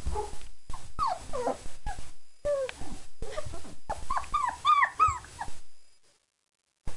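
Four-week-old German Shepherd puppies whining and yelping: a string of short, high whines that bend up and down, coming thickest about four to five seconds in, before the sound cuts off about six seconds in.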